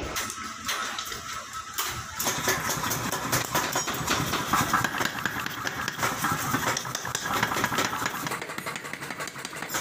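Mechanical power hammer running, a fast, steady run of knocks that grows louder and fuller about two seconds in.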